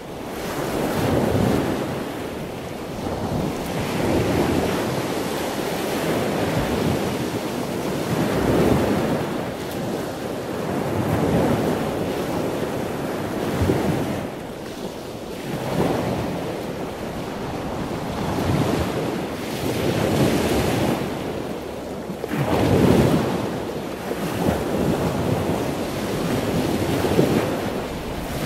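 A steady rushing noise that swells and ebbs every two to four seconds, with no distinct knocks or calls.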